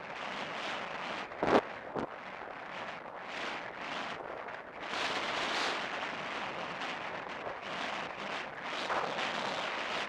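Wind rushing over a helmet-mounted camera's microphone as the horse gallops, with a sharp knock about a second and a half in and a smaller one just after.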